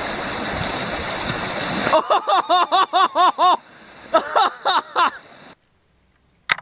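Rushing, splashing water, then two quick runs of short, arching pitched calls, about five a second, before the sound drops away; a sharp click comes near the end.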